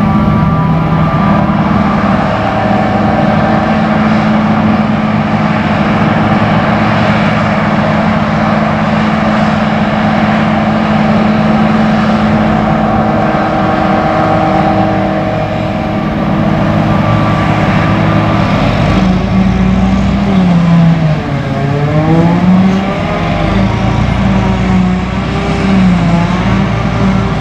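John Deere 9900 self-propelled forage harvester with its 956 hp engine running under load while chopping hay, a loud steady machine drone. In the last third its pitch dips and comes back up a few times.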